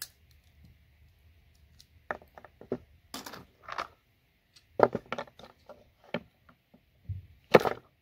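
Irregular clicks, snaps and light clatter of plastic RJ45 ethernet connectors being pried apart with pliers and a screwdriver, their small pieces falling, with a louder knock on the wooden board near the end.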